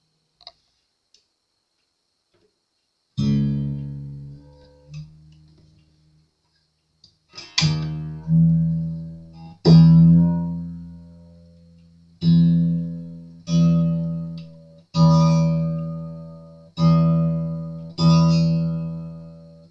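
Freshly strung low E string of a cheap acoustic guitar plucked again and again as it is tuned up to pitch, each note ringing and fading. The first few plucks come irregularly and sit a little lower, then the note settles and is plucked about once every second and a half.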